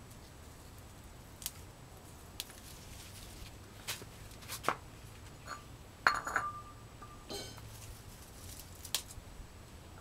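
Quiet background with a low hum and scattered sharp clicks and taps. The loudest is a cluster of clicks about six seconds in, together with a brief high, steady tone lasting about a second.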